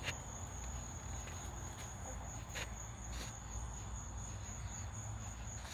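Crickets trilling steadily in one unbroken high-pitched note, with a couple of soft clicks near the middle.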